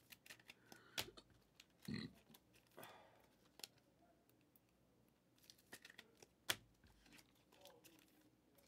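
Near silence with scattered faint clicks and taps from trading cards and plastic sleeves being handled; a sharper click comes about a second in and another just past six seconds, with a short, lower sound around two seconds.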